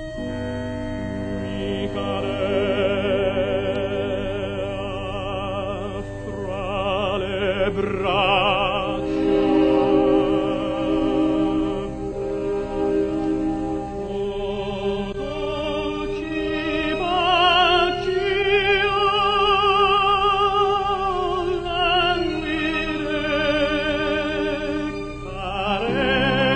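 Operatic tenor singing long phrases with a wide vibrato over instrumental accompaniment.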